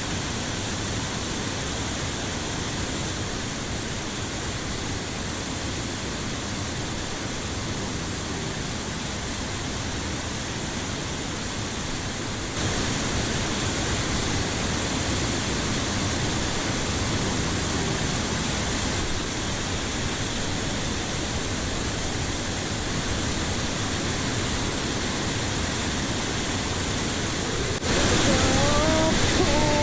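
Steady rush of a mountain stream's flowing water, growing a little louder about halfway through and again near the end.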